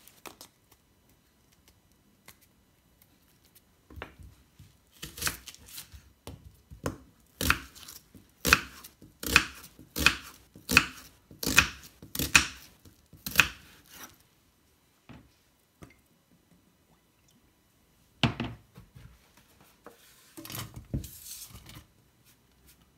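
A chef's knife chopping a white onion on a wooden chopping board: a run of sharp knife strokes knocking through into the board, roughly one every half second to second, for about nine seconds. A few knocks and rustles follow later.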